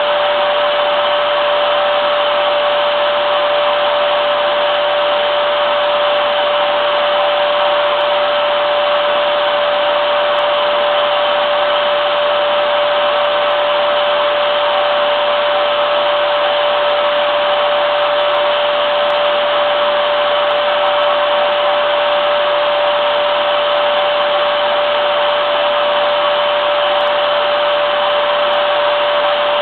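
Vacuum cleaner running steadily, a continuous rushing of air with one steady tone over it.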